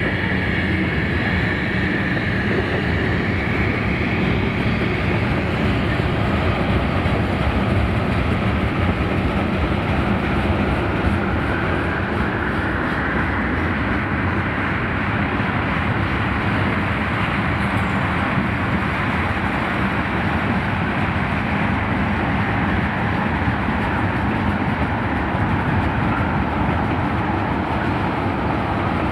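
Freight cars of a long mixed freight train rolling past close by: a steady rumble of steel wheels on rail.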